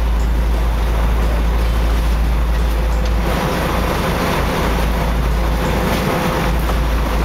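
Sportfishing boat's engine running steadily under wind buffeting the microphone and the wash of the sea; the wind and water noise grows louder about three seconds in.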